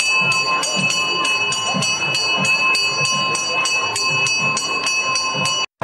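Hand-held brass puja bell (ghanta) rung rapidly and steadily during the lamp offering (arati), about four strokes a second with a bright ringing that carries between strokes, over a murmur of voices. It stops abruptly near the end.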